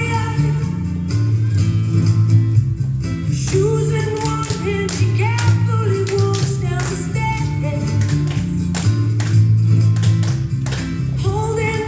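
A song playing: a singing voice over a bass line, guitar and sharp percussion.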